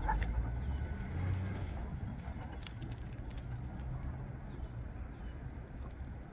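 Low, steady rumble of wind on the microphone, with a few faint, short, high chirps from a small bird.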